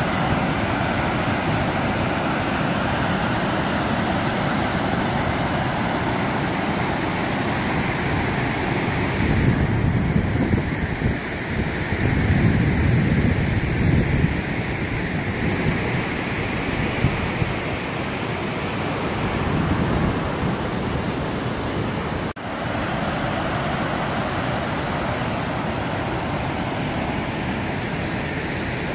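DeSoto Falls rushing steadily, a continuous wash of falling water. A stretch of heavier low rumble about a third of the way in, and a brief dropout a little past the middle where the footage is cut.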